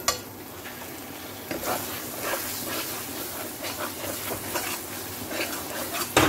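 A metal spatula stirs and scrapes boiled fenugreek leaves through a spice paste frying in a metal kadai, with a frying sizzle that grows stronger about one and a half seconds in. Sharp knocks of the spatula against the pan come right at the start and again near the end.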